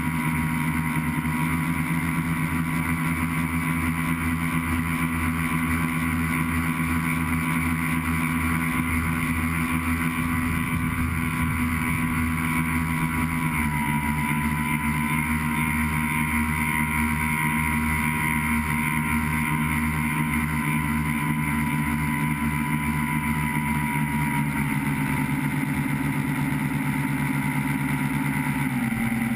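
Tricopter's motors and propellers buzzing steadily in flight, picked up by the GoPro on board. The pitch steps down slightly about halfway through and again near the end.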